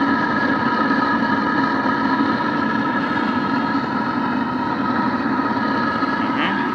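Homemade aluminium-melting furnace firing hard with the fire turned up: a steady rushing noise with a few steady whining tones on top, unchanging throughout.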